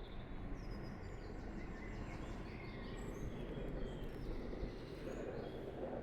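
Rustling and scraping noise of leaves and soil being handled by hand, with faint short bird chirps in the background.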